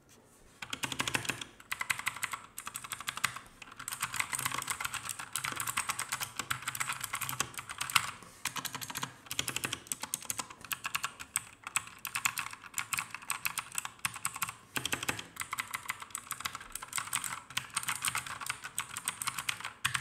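Fast typing on a 60% mechanical keyboard with Outemu blue clicky switches: a rapid, continuous clatter of key clicks. It starts about half a second in and has a few brief pauses.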